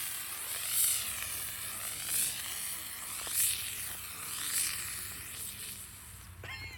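A hissing, sizzling burn from a smoking pyrotechnic charge on the grass. It swells about once a second and dies down near the end.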